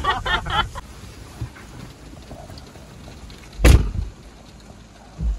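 Rain falling on a car, heard from inside the cabin as a faint steady hiss. A single sharp, loud thump comes about three and a half seconds in, with a smaller, dull thump near the end.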